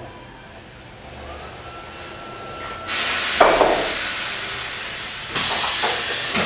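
Compressed air hissing from the valves of a Baltrol pneumatic can-case lifter as its hand control is worked: a faint whistle first, then a sudden loud rush of air about three seconds in with a knock just after, and a second surge of hiss near the end.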